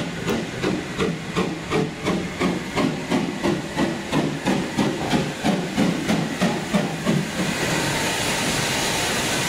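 Ivatt Class 2 tank steam locomotive working slowly into the station with a goods train, its chimney exhaust beating evenly at about three beats a second. About seven seconds in, the beats stop and a steady hiss takes over as the engine draws close.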